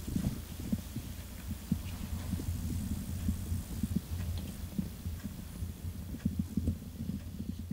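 Domestic cat purring close to the microphone: a low, steady rumble with soft uneven pulses.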